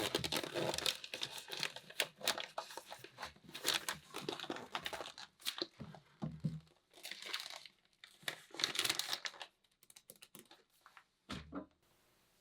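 Compressed black jungle soil being crumbled and packed into a wooden planting pocket by hand: a dry crackling and rustling in irregular bursts that thins out and stops near the end.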